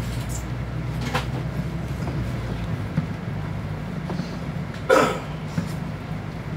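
Mercedes-Benz Citaro O530G articulated bus running, its engine a steady low drone heard from inside the cabin. The deepest rumble falls away a little before halfway through. There are a few light knocks, and a brief louder sound about five seconds in.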